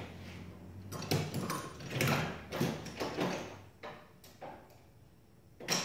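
Clatter and sharp metallic clicks of hand tools and parts being handled, a busy cluster in the first few seconds, then a few single clicks.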